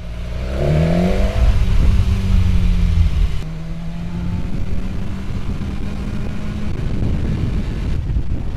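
2016 BMW S 1000 XR's inline-four engine through its stock exhaust, accelerating with the note rising over the first second or two, then running at a steady pitch while riding. Near the end the engine tone gives way to a low rushing noise.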